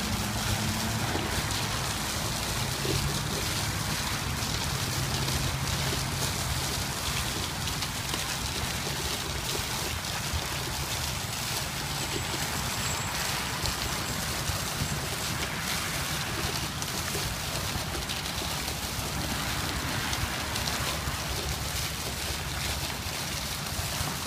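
Pond fountain jets shooting water up and splashing back onto the water surface, a steady rain-like spatter. A low hum runs underneath for the first several seconds.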